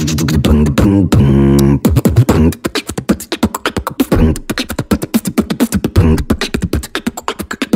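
Podcast intro music made of a rapid string of sharp percussive hits, opening with a few held pitched notes.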